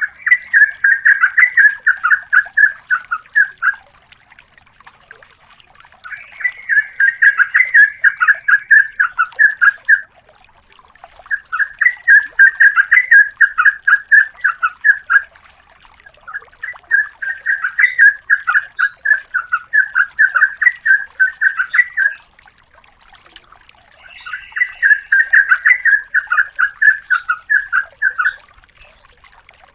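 Yellow-vented bulbul (trucukan) singing long rolling phrases of rapid, bubbling notes. It gives five such rolls of several seconds each, with short pauses between them.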